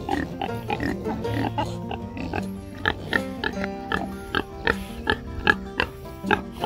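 Background music with a steady beat of short notes, and Kunekune pigs grunting underneath, most near the start.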